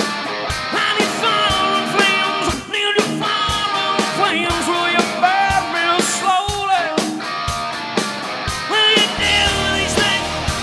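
Live rock band playing: a male lead vocal sung over electric guitars, bass and drums, with the drums hitting about twice a second. The low end gets heavier about nine seconds in.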